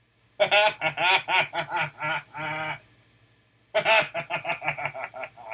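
A man laughing heartily in two bouts of quick, pulsing 'ha-ha' beats, the second starting a little under four seconds in.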